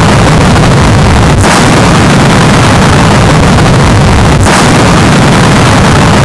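Deliberately distorted "earrape" meme sound boosted to clipping: a harsh, overloaded wall of noise at maximum loudness, with two brief dips about one and a half and four and a half seconds in.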